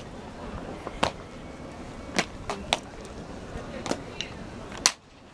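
Sharp knocks of ceremonial guards' boot heels and rifle drill on stone paving, irregular and about a second apart, over a low murmur. The background drops out briefly near the end.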